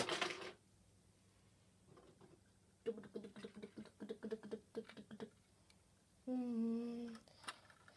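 A child's voice making play sound effects: a quick run of short pitched vocal pulses, then one held hummed note near the end.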